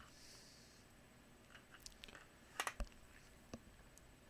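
Faint clicks and ticks of a screwdriver working a screw in a Black & Decker DustBuster's plastic housing, a few scattered, with the loudest cluster about two and a half seconds in.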